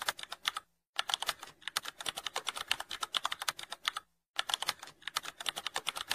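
Computer keyboard typing sound effect: a rapid run of key clicks, with two brief pauses, one just under a second in and one about four seconds in.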